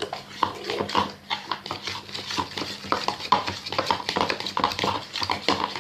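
A utensil stirring white school glue and food colouring in a bowl for slime, with quick, irregular scraping and clicking against the bowl.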